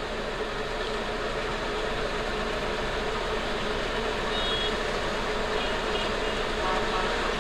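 Air conditioning of a 2003 Suzuki Alto running with the engine on: a steady rush of air from the dashboard vents with a faint hum under it, growing slightly louder. The AC is working and starting to cool.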